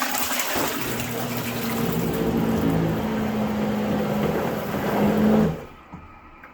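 Liberty Pumps Ascent II upflush macerating toilet flushing: rushing water with the steady hum of its pump motor, which stops abruptly about five and a half seconds in. A normal flush-and-pump-out cycle.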